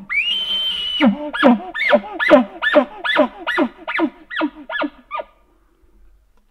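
Bull elk bugling: a glide up into a high whistle held for about a second, then a string of about ten chuckles at roughly two and a half a second, stopping about five seconds in.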